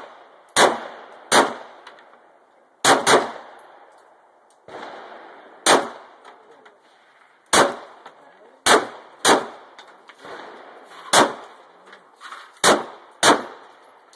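Glock 17 9mm pistol firing about a dozen shots at uneven spacing, some in quick pairs, each sharp report with a short echo.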